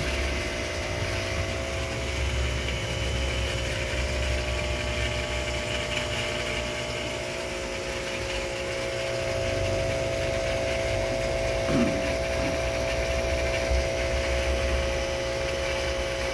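Steady mechanical hum of running aquarium equipment: a constant tone over a low rumble and a faint hiss. There is one short faint knock about twelve seconds in.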